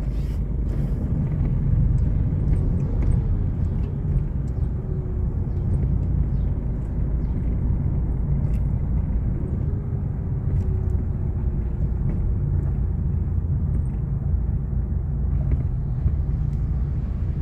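Motorcycle running on the move at a steady pace, giving an even low rumble with a faint engine tone that slowly shifts in pitch.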